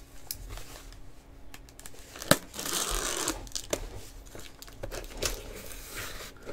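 Packing tape being torn and peeled off a mailing package, with crinkling and small clicks. There is a sharp snap about two seconds in, followed by a rip of about a second.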